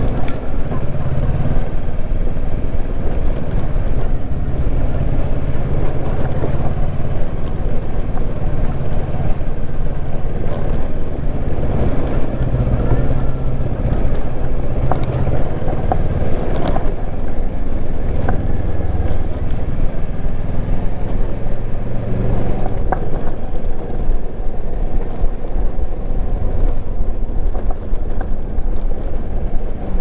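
Kawasaki Versys 650 parallel-twin engine running steadily while riding a dirt road, its note shifting up and down a little with the throttle, heard from an on-board camera with wind rushing over the microphone. A few brief sharp knocks come through from the rough ride.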